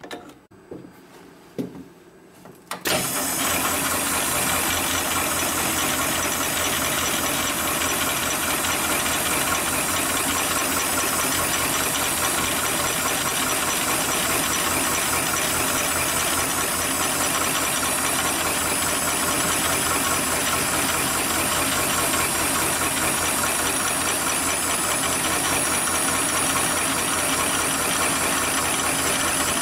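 Heavy-duty computer-controlled pattern tacking sewing machine starting suddenly about three seconds in, after a few light clicks, and then sewing steadily: a fast, even run of needle strokes with a steady hiss over it.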